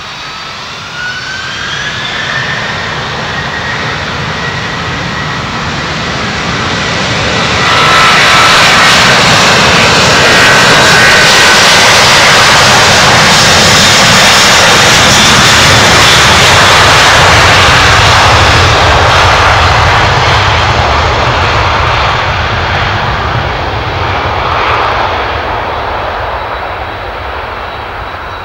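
Airbus A330-200's twin Pratt & Whitney PW4000 turbofans spooling up to takeoff thrust with a rising whine, then a loud jet roar that jumps sharply about eight seconds in as the airliner accelerates past on its takeoff roll, fading as it rolls away down the runway.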